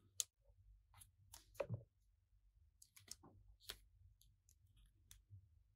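Faint, scattered plastic clicks and taps from a Skeletor action figure being handled and posed, its joints and parts knocking together.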